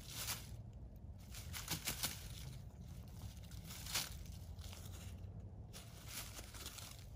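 Dry fallen leaves rustling and crunching in irregular bursts as a dog roots and paws at the base of a tree, with louder crunches about two and four seconds in.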